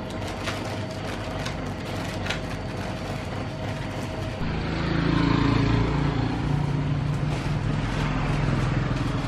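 A motor engine running steadily, growing louder about four and a half seconds in.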